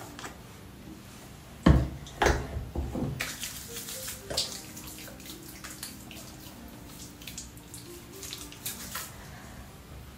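Sink tap running with splashing while hands wash the face, with two loud thumps about two seconds in.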